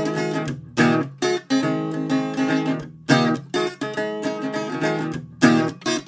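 Strummed acoustic guitar playing an instrumental stretch of a song with no singing. Hard accented strums about every second ring out between strokes.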